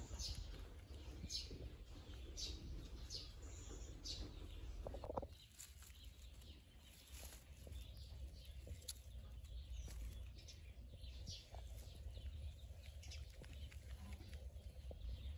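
Faint, high bird chirps repeating about once a second over a low rumble for the first five seconds or so; after that the sound drops away to scattered faint ticks.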